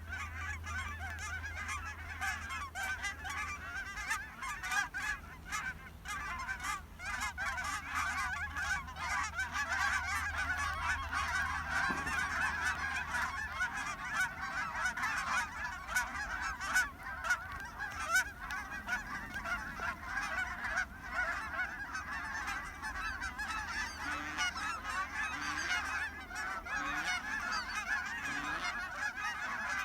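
A large flock of Canada geese honking continuously, many birds calling over one another.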